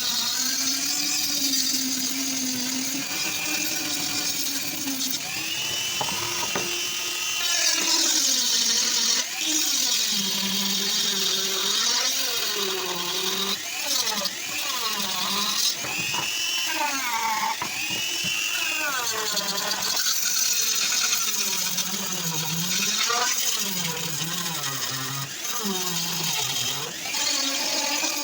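Small handheld power tool running continuously, its pitch rising and falling over and over as its speed changes.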